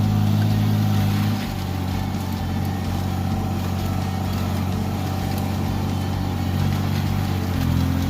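Tractor engine running steadily, its speed easing off slightly about a second and a half in and picking up a little near the end.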